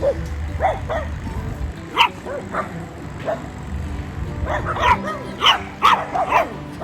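Puppies yipping and barking in short, high calls: one about two seconds in, then a quick run of several near the end.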